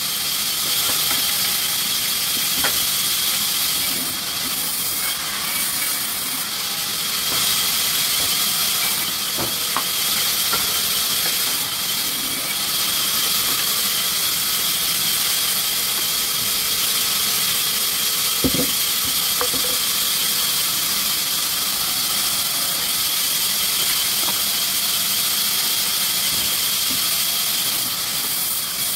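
Steady hissing noise of sawmill machinery running, with a few faint ticks and one short knock.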